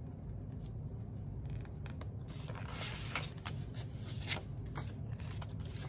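Paper bills and the clear plastic pouches of a ring binder being handled: light rustling with a few sharp clicks and taps, over a steady low hum.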